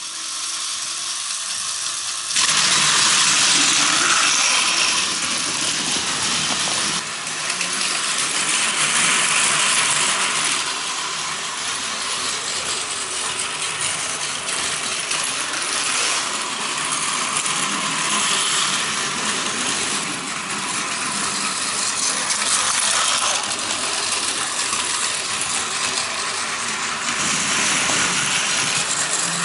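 Battery-powered Plarail toy Shinkansen trains running on blue plastic track: a steady, high-pitched whirring rattle of small motors, gears and wheels clattering over the track joints. It gets louder about two seconds in.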